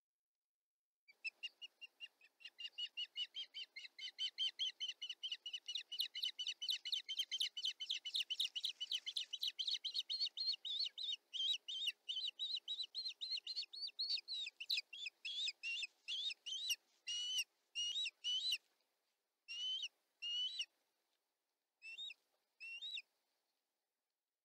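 Osprey calling: a long run of high, whistled chirps at about six a second, which slows into louder, spaced calls and ends in a few pairs of calls.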